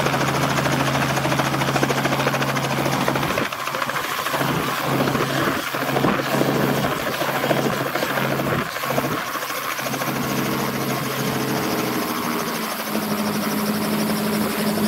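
Small two-bladed Robinson helicopter running on the ramp, engine and main rotor turning, with a steady mechanical hum; a higher hum comes in near the end.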